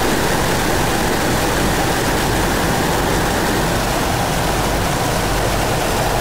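Steady airliner cockpit noise flying through heavy rain in cloud: an even hiss of airflow and rain on the windshield over a low engine hum.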